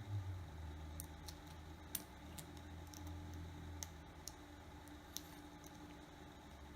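Faint, irregular light clicks and ticks of small repair tools against a phone's internal parts while an adhesive tab is worked off the battery connectors, about seven ticks spread over several seconds, over a low steady hum.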